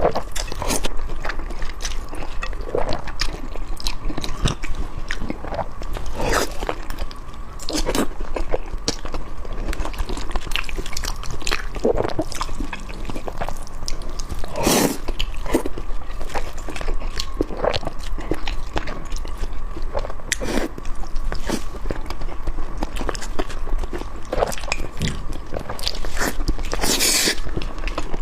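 Close-miked chewing and biting with frequent irregular crunches: a person eating barbecued beef tendon and mixed rice noodles. A faint steady tone runs underneath.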